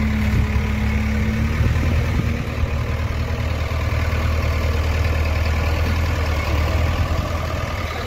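JCB backhoe loader's diesel engine running steadily with a deep hum, with a higher steady tone over it for the first couple of seconds.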